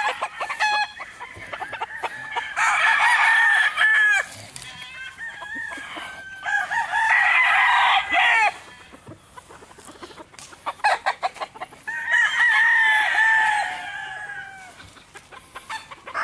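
Gamefowl roosters crowing: three long crows a few seconds apart, with short clucking calls between them.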